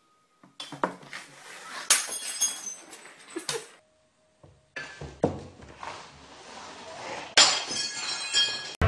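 A drinking glass stuck over a cat's head knocking and clinking against a tabletop in a series of sharp knocks, with a louder glassy crash about seven seconds in.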